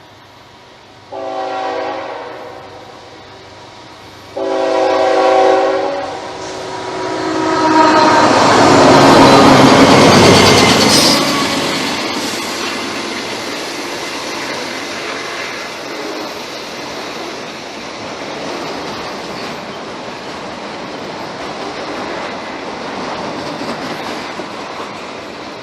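Norfolk Southern train passing: the locomotive horn sounds two blasts, about a second and four and a half seconds in, then the locomotive goes by, loudest about ten seconds in. After it the railcars roll past with a steady rumble and clickety-clack of wheels on rail joints.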